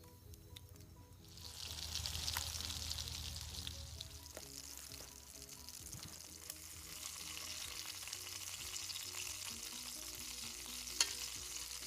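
Hot bacon grease frying in a cast iron skillet, the sizzle starting suddenly about a second in and running steadily, with a sharp click near the end. Soft background music runs beneath it.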